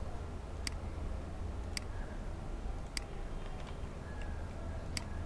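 Four sharp computer mouse clicks about a second apart, over a steady low hum.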